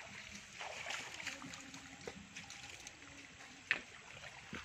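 Faint water trickling and sloshing, with one sharp click about three and a half seconds in.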